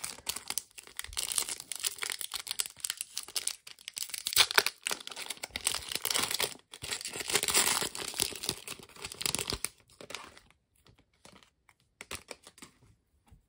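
Trading card booster pack wrapper being torn open and crinkled by hand: dense crackling for about ten seconds, thinning to a few light rustles near the end.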